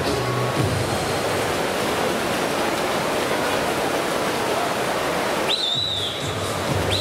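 Steady noise of a crowd in an indoor swimming-pool hall during a race, heavy with the hall's echo. A high whistle sounds about five and a half seconds in.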